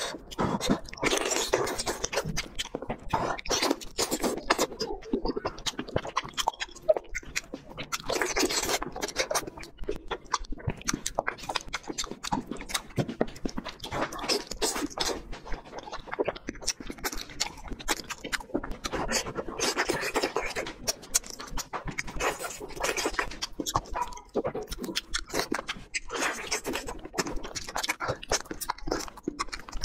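A person chewing and lip-smacking tender pork knuckle skin and meat, a dense, continuous run of small smacks and clicks.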